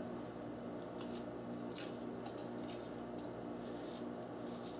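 Shell of a hard-boiled egg being peeled by hand: faint scattered crackles and ticks as pieces of shell break away, with one small click a little over two seconds in, over a low steady hum.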